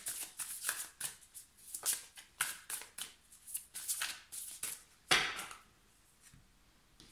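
A deck of tarot cards being shuffled by hand: a run of quick, rustling card strokes, several a second, with one longer, louder swish about five seconds in.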